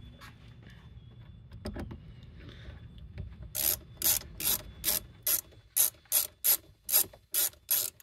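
Hand ratchet clicking in quick, even strokes, about two and a half a second, as it loosens the band clamp on the engine air intake hose; a few single clicks come first, and the steady strokes start about halfway through.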